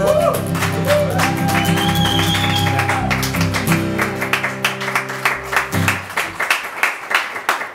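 Acoustic guitars strumming the final chords of a song, the chords ringing off about six seconds in, followed by a few people clapping.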